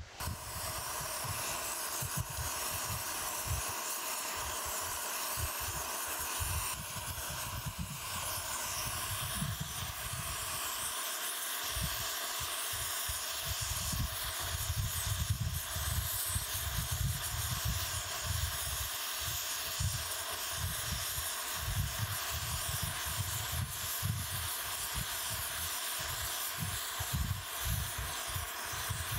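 Brazing torch flame hissing steadily over an uneven low rumble, heating a cracked cast-iron steam chest casting to red heat while brazing rod is fed into the crack.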